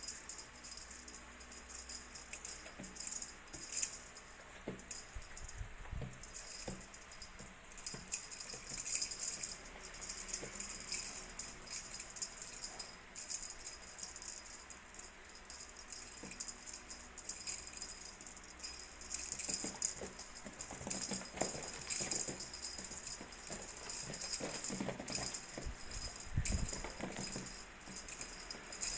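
Irregular high jingling and rattling, as from a small bell or rattle being shaken and batted about, with a few soft low thumps.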